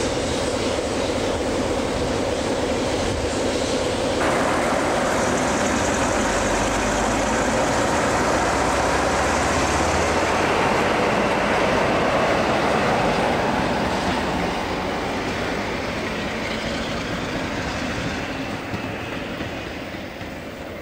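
British Rail Class 47 diesel locomotive, its Sulzer V12 engine working hard and smoking as it moves past close by. The noise builds about four seconds in, has a deep rumble in the middle, then fades away over the last several seconds.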